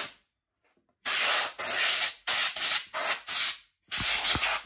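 Compressed air blown in a quick series of short hissing blasts, starting about a second in, to clear dirt and grime out of a chainsaw's recoil cover.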